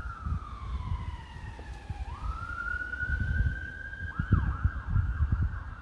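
Emergency vehicle siren wailing: a long slow fall in pitch, a quick rise back up that holds, then a short dip, over low uneven rumbling.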